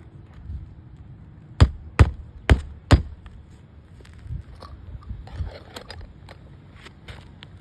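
Claw hammer striking four times on an asphalt-shingle roof, about half a second apart, followed by lighter tapping and rustling of the shingles.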